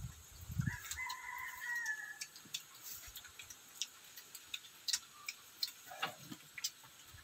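A rooster crows once, a single drawn-out call about a second in, over a scatter of small clicks.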